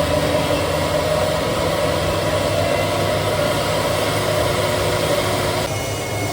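Steady turbine noise from a jet air starter cart running to start a Boeing 777F's GE90-110 engine. A broad hiss carries a few steady tones, and the high hiss drops away abruptly near the end.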